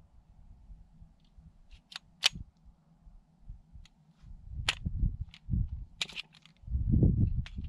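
Springfield 1911 .45 pistol clicking as it is handled: several short, sharp metallic clicks spaced out over the seconds, the loudest about two seconds in. Low rumbles come and go in the second half.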